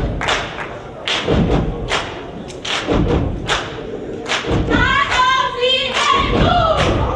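Step team stomping and clapping in a rhythmic pattern of sharp hits. Voices chant or shout briefly about five seconds in.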